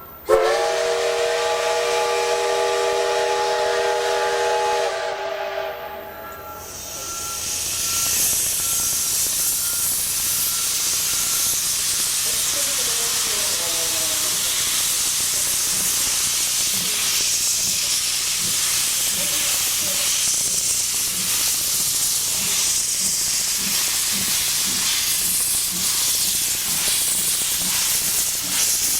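Steam locomotive C62 2 blowing its whistle, a sudden loud chord of several steady tones held for about five seconds. About two seconds later a loud, steady hiss of venting steam starts and runs on.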